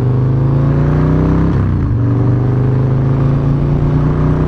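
Harley-Davidson Low Rider S's V-twin engine pulling under acceleration, its pitch rising. About one and a half seconds in it dips and breaks briefly as the bike shifts up a gear, then pulls again from a lower pitch.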